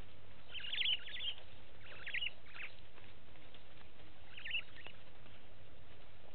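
A bird calling in three short bursts of quick, high chirps over a steady faint hiss.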